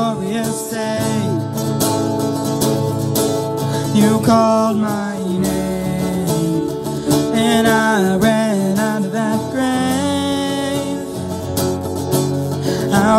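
A worship band performing a contemporary praise song: voices singing the melody over strummed acoustic guitars and keyboard.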